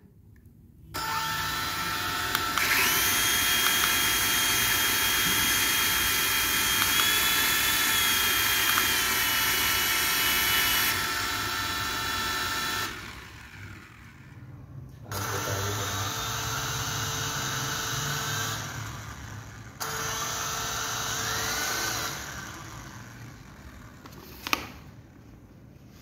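Small electric rotor motors of toy remote-control helicopters whining as the rotors spin, the pitch shifting up and down with the throttle. The whine cuts out about halfway through, starts and stops twice more, and a single sharp click comes near the end.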